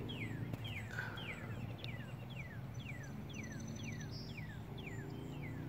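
A bird calling a steady series of short, falling whistled notes, about two a second, over a low steady hum.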